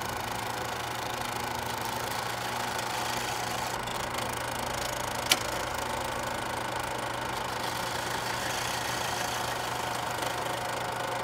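Steady mechanical running hum with hiss, and a single sharp click a little past halfway.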